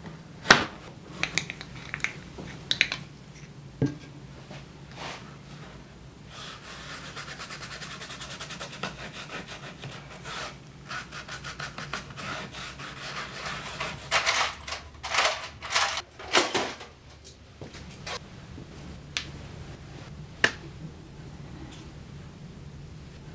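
Workshop handling sounds of hand tools and materials on a workbench: scattered knocks and taps, a stretch of rapid fine ticking in the middle, then several loud scraping strokes.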